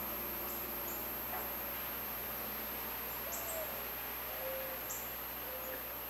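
Forest ambience: a steady hiss with a constant very high whine, a handful of short high-pitched bird chips, and from about three seconds in several short, low whistled bird notes.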